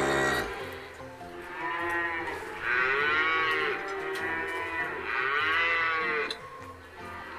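Cattle mooing: one call tails off just after the start, then about four moos follow one after another, each about a second long and rising then falling in pitch.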